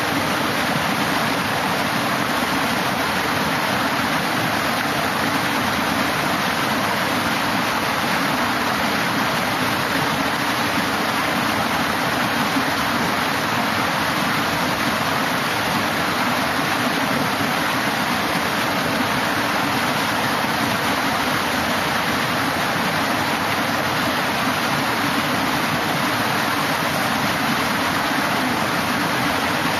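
Water pouring down a concrete fish ladder, spilling over the weir steps from pool to pool in a steady, even rush.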